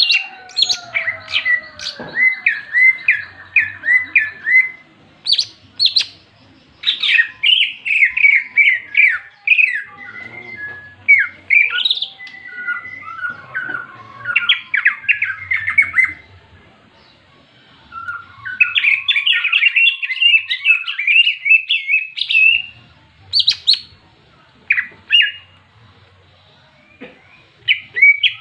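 Cucak ijo (green leafbirds) calling in fast, scratchy chattering phrases with sharp 'ngentrok' and 'jenggrik' notes, the aggressive fighting (tarung) calls. The calls come in bursts, with brief pauses partway through and near the end.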